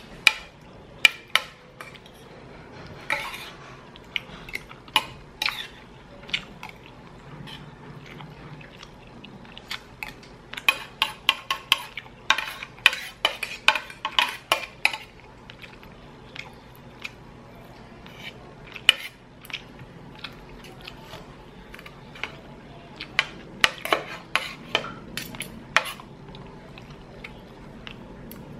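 Metal fork and spoon clinking and scraping against a ceramic plate while chicken is cut from the bone, in irregular runs of sharp clicks, densest about halfway through and again near the end.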